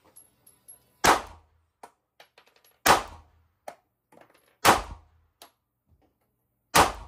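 Glock 43X MOS 9mm pistol fired four times at a slow, even pace, about two seconds apart, the first about a second in and the last near the end. Each shot is a sharp crack with a short ringing tail, with faint small clicks between shots.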